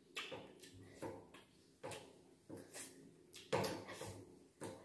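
Eating noises at a table: about six short clicks and smacks from hands working rice and curry on plates and from chewing, the loudest about three and a half seconds in.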